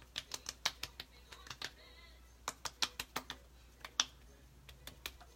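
Fingertips patting cream onto facial skin: quick runs of light slapping taps, pausing briefly around two seconds in, with one sharper tap near the end.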